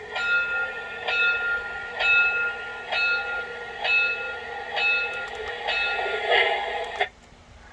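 Recorded train bell sound effect played back from a cheap MP3 player, struck about once a second with each stroke ringing on, then cut off abruptly near the end.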